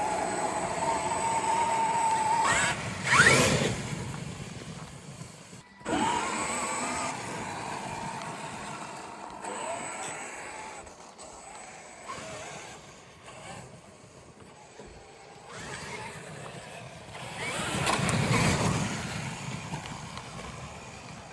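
Traxxas X-Maxx RC truck's electric motor whining as it drives, the pitch sweeping up each time it accelerates, with tyre and chassis noise over the ground. The sound cuts off abruptly about six seconds in and picks up again, with another loud burst of acceleration near the end.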